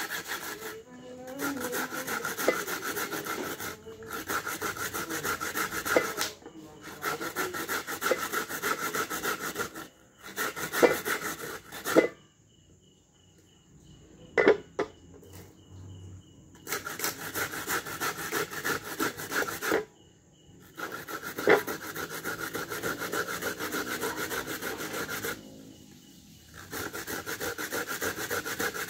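Coconut flesh being grated by hand against a long grater in quick rasping strokes. The strokes come in runs of a few seconds, broken by pauses that hold a few sharp knocks.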